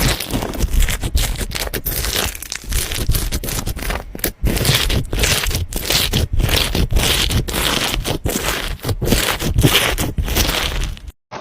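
Hands squeezing and pressing slime: a dense, irregular run of small clicks, pops and squelches, cutting off abruptly just before the end.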